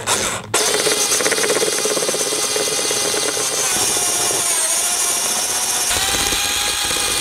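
Power drill with a step drill bit boring a hole through a plastic motorcycle seat cowl: a short burst at first, then a steady high whine. The motor's pitch sags under load about four seconds in as the bit cuts, and picks up again near the end.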